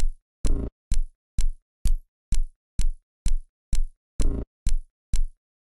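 Sampled electronic glitch drum loop: a hit with deep low end and a bright click, repeating about twice a second at a steady tempo. A longer, fuller hit comes twice, just after the start and about four seconds in.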